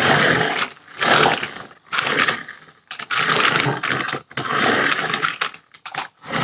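Toy RC monster truck's electric motor and plastic gearbox whirring in repeated bursts of about a second each as the throttle is pulsed, about six times.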